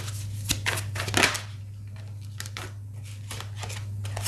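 Tarot cards being handled and shuffled: a quick run of crisp flicks and rustles in the first second or so, then scattered softer ones, over a steady low hum.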